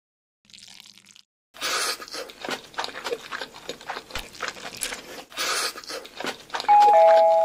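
Dense crackling made of many small clicks, starting a second and a half in, then near the end two loud steady electronic tones, one starting just after the other.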